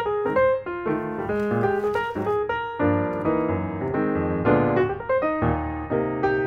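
Background piano music, a quick succession of struck notes.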